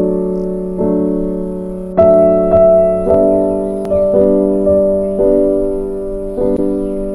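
Background piano music: chords struck every second or so, each left to fade.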